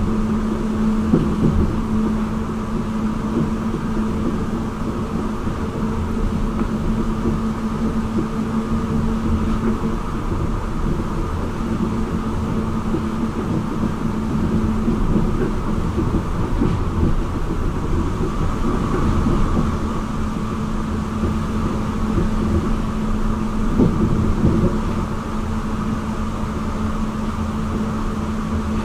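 Running noise of a Kobe Port Liner rubber-tyred automated guideway train at speed: a steady rumble of tyres on the guideway with a constant low hum. It swells briefly about three-quarters of the way through as a train passes the other way.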